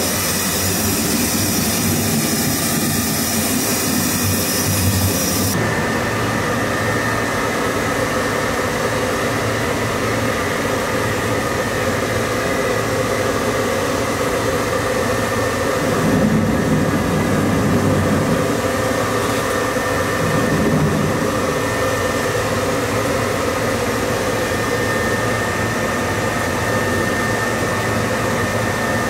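Steady machine hum with several held tones. About five and a half seconds in it changes sharply: a high hiss stops and a higher tone comes in.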